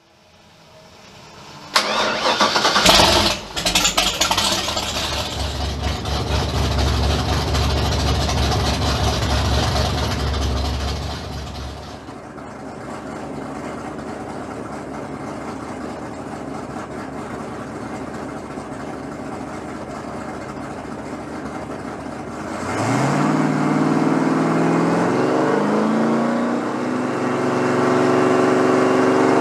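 Supercharged 565-cubic-inch big-block Chevrolet V8 with fuel injection on an engine dyno, running through open headers: it fires up about two seconds in with a couple of sharp blips, then runs at a fast idle that drops to a steady lower idle about twelve seconds in. Near the end it is revved up in two rising steps and held at a higher speed.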